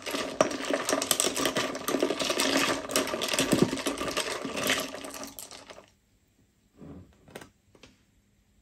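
Long bar spoon stirring ice cubes in a tall glass, a fast run of clinks and rattles that stops about six seconds in, followed by a couple of faint knocks.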